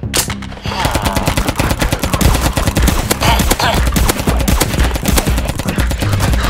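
Rapid, continuous firing of a toy gel blaster, a dense run of sharp shots starting about a second in.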